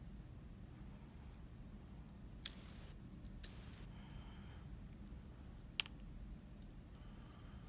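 Small metal parts of a disassembled mortise lock cylinder being handled: a sharp click about two and a half seconds in, brief scraping after it, and a smaller click near six seconds.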